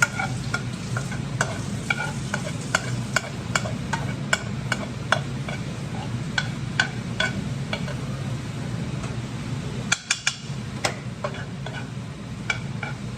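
A utensil clicking and scraping against a frying pan as food is stirred and sizzles on the stove, over a steady low hum. The taps come irregularly, a few a second, with a quick cluster about ten seconds in.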